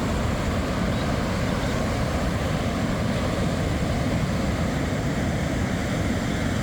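Steady roar of ocean surf breaking on the beach, mixed with wind buffeting the microphone.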